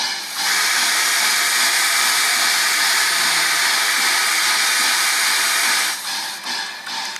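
Durango & Silverton K-28 class 2-8-2 steam locomotive No. 473 venting steam in a loud, steady hiss for about five seconds, which stops near the end and gives way to rhythmic chuffing.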